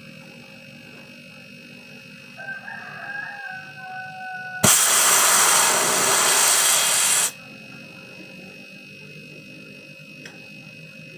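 A rooster crows once, then a blast of compressed air hisses for nearly three seconds and cuts off suddenly: air blown through the freezer's evaporator line to flush out oil that has collected in it.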